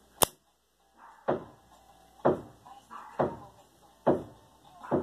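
Zippo lighter's metal lid clicking open and snapping shut over and over, about once a second: six sharp metallic clacks, the first the sharpest.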